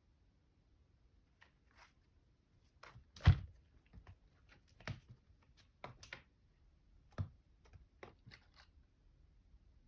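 Kitten at play in a small room: scattered light rustles and taps, with one sharper knock about three seconds in and a few smaller knocks after it.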